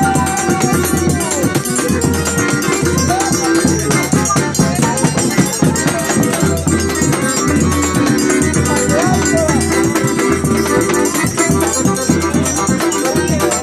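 Live acoustic band playing: a flute melody over the jingles of a pandeiro, a drum struck with a stick and hand, and a strummed cavaquinho, in a steady rhythm.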